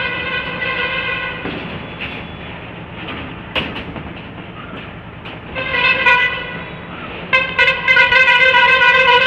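A horn blowing on one steady pitch. A long blast stops about a second and a half in, a short blast comes around six seconds, and another long, louder blast starts near the end. A single sharp knock sounds about three and a half seconds in.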